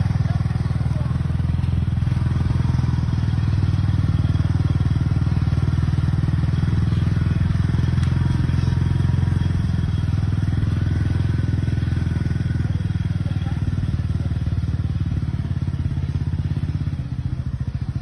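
Farm vehicle engine running steadily at a constant speed with a rapid firing pulse, easing off a little near the end.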